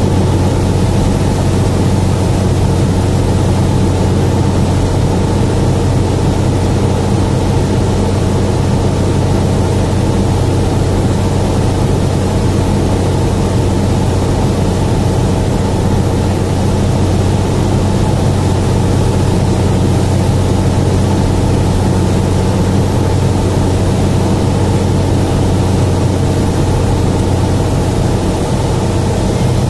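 Steady drone of an aircraft's engine heard inside the cabin during the approach, a strong low hum with several steady tones above it and an even rush of noise.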